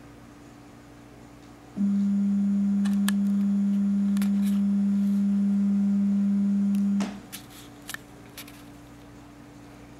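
Building fire alarm speaker sounding one steady low tone for about five seconds during a test of the fire alarm system, starting about two seconds in and cutting off suddenly. A few faint clicks follow.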